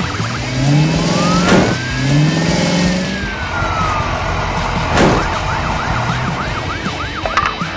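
Cartoon siren effect: one slow wail rising and falling, then a fast yelp near the end, over a revving engine. Two sharp hits cut through, about three and a half seconds apart.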